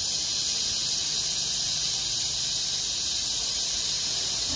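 Steady, loud high hiss with a low hum underneath, unchanging throughout: machinery running in the CNC workshop.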